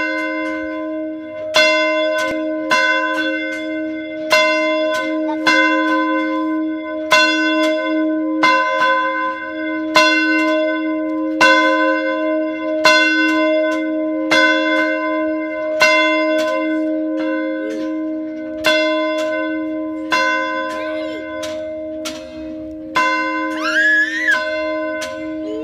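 A single church bell struck about every second and a half, each stroke ringing on into the next: the bell rung to call the community to prayer.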